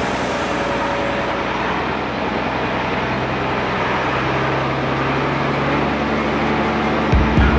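Ex-Army Unimog truck's diesel engine running steadily while driving, with heavy wind and tyre noise over it. Music with a strong beat comes in near the end.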